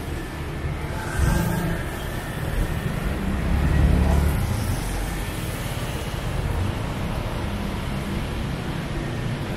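Road traffic passing on a city street: a continuous rumble of car engines and tyres that swells as vehicles go by, loudest about four seconds in.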